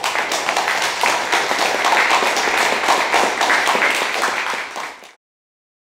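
Audience applauding, many hands clapping together, which cuts off suddenly about five seconds in.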